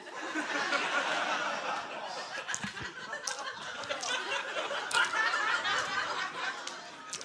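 A live comedy-club audience bursts into laughter all at once and keeps laughing, slowly tapering off.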